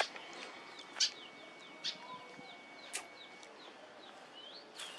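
Small birds chirping over and over in short, quick downward notes, with a thin steady whistle for the first few seconds. Four sharp crinkles come from a paper diaper and tissue being handled.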